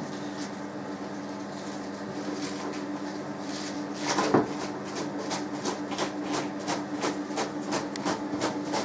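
Half a head of cabbage being grated on a plastic slicer-grater: rhythmic rasping strokes of the cabbage over the blade, a louder first scrape about four seconds in, then about three strokes a second, over a steady low hum.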